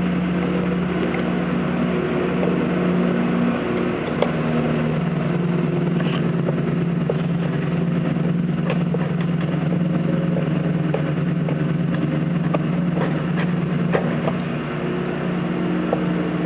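Steady motor hum that shifts slightly in pitch, with scattered light clicks and taps.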